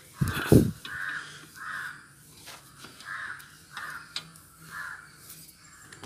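A crow cawing over and over, short rough caws about every half second with a pause in the middle. A low thump just after the start is the loudest sound.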